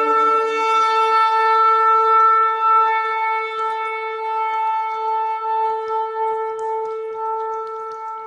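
A shofar blown in one long, steady note held at a single pitch, slowly fading over its last few seconds.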